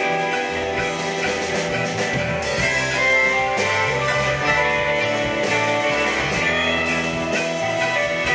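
Live blues-rock band playing an instrumental passage: electric guitar over bass and a drum kit.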